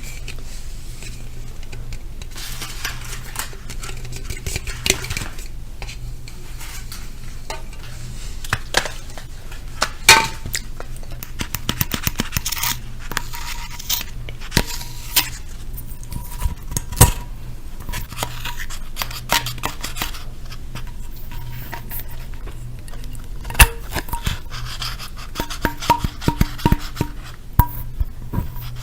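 Close-miked ASMR tapping and handling of hard objects: irregular clicks, taps and light scrapes, with a few sharp, louder knocks, over a steady low hum.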